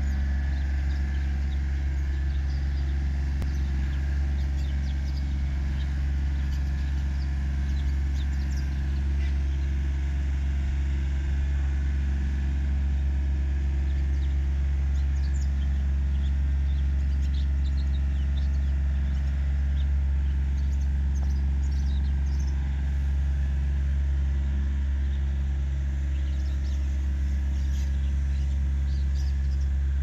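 A steady low mechanical hum, even in level throughout, with a few faint bird chirps.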